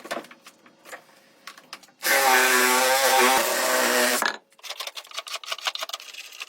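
A power tool runs for about two seconds with a steady motor pitch, with scattered clicks and knocks before and after.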